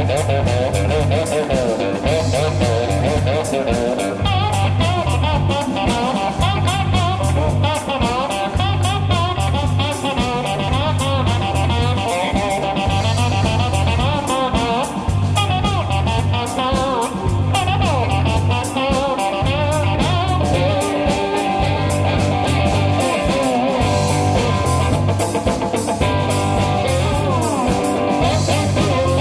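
Live blues-rock instrumental: an amplified cigar box guitar played with a slide, its notes gliding up and down, over bass guitar and a drum kit keeping a steady beat.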